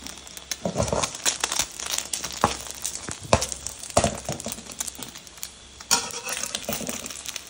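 An egg frying in hot oil in a wok, crackling with irregular sharp pops. About six seconds in, a metal spatula scrapes the pan.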